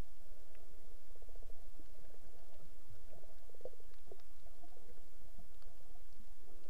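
Muffled underwater rumble and gurgle of water moving around a camera held below the surface, with faint scattered clicks.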